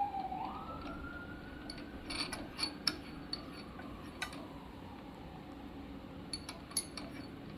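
Scattered metallic clicks and clinks, about seven in all, as a chuck key tightens a keyed drill-press chuck around the arbor of a drum-sander drum. A faint siren rises and slowly falls behind them.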